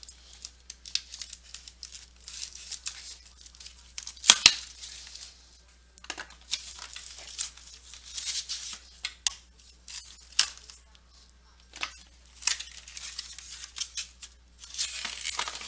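Plastic wrapping on trading-card boxes being torn and crinkled by hand: irregular sharp rips and crackles, the loudest a little over four seconds in.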